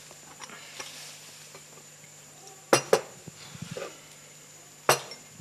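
China teacups and teapot clinking against each other and the table while tea is served: a few light clinks, then two sharp clinks close together near the middle and one more near the end.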